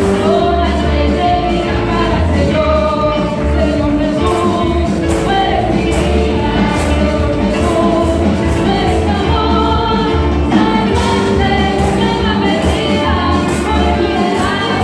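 Upbeat Christian worship music: voices singing a melody over a band with a steady, heavy bass beat.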